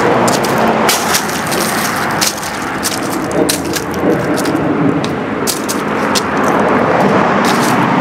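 Footsteps crunching through dry fallen leaves: a continuous loud rustle broken by many irregular sharp crackles.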